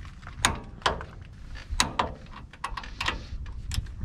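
A torque wrench ratcheting as two nuts are tightened toward 103 foot-pounds: a string of irregularly spaced sharp metallic clicks, some with a short ring.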